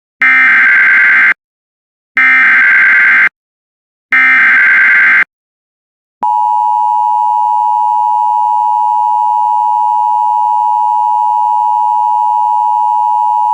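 Emergency Alert System header: three one-second bursts of digital SAME data tones, a second apart, which encode the warning's type and area. About six seconds in, the steady EAS attention signal tone starts and holds, announcing that an emergency message follows.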